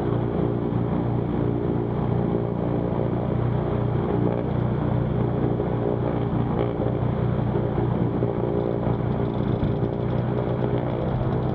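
Twin piston engines of a Cessna 310Q running steadily on the ground, a constant low drone.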